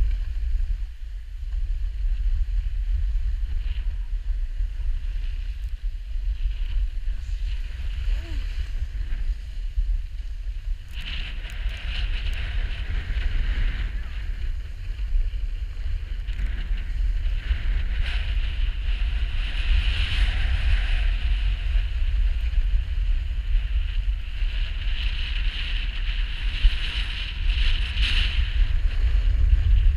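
Wind buffeting a GoPro camera's microphone during a downhill run on snow, a steady low rumble. From about eleven seconds in, the hiss of sliding on snow grows louder.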